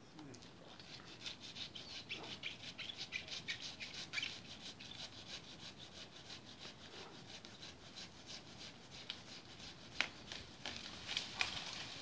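Handsaw cutting through bay tree wood in quick, rhythmic back-and-forth strokes. The strokes are heavy in the first few seconds, ease off midway, then pick up again near the end, with a single sharp crack about ten seconds in.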